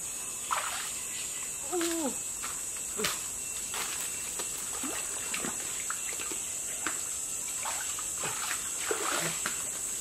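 Shallow stream water splashing and sloshing in short, scattered bursts as hands grope through a small rocky pool. A steady high hiss runs underneath, and a brief call falling in pitch comes about two seconds in.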